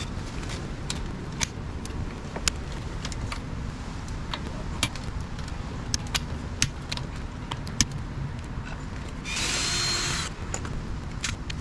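Hand tools and metal parts clinking and knocking irregularly as engine parts are put back together, with a rasping burst of about a second near the end. A low rumble underlies it throughout.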